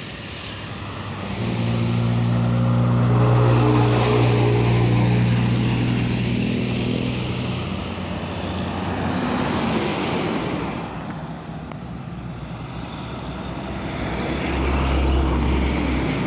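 Diesel trucks and a van passing close by on a highway: engine drone and tyre noise swelling as each goes by. A steady engine hum is loudest a few seconds in, and a deep low rumble comes near the end as a container tractor-trailer passes.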